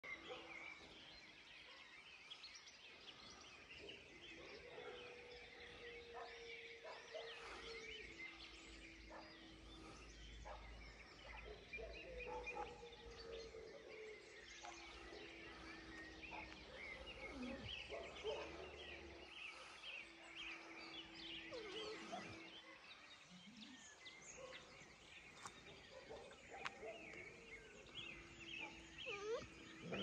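Faint outdoor chorus of many birds chirping, with a low held tone a couple of seconds long coming and going several times in the background.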